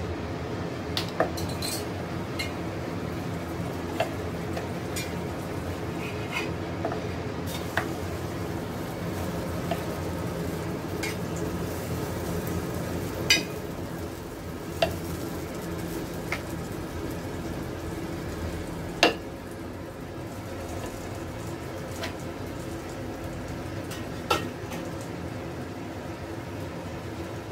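A wooden rolling pin rolling dough on a granite rolling board, with a few sharp knocks as the pin strikes or is set down on the stone, over a steady background noise.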